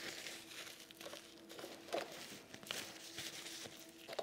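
Faint rustling and crinkling of craft materials being handled on a work table, with a light tap about two seconds in, over a faint steady hum.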